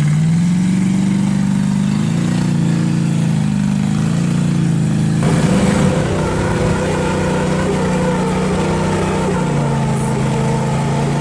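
Rock buggy engine revved hard and held at high revs as it claws up a steep sandstone ledge, with poor traction. About five seconds in, a harsh hiss joins as the tires spin and throw sand. The revs dip slightly near the end.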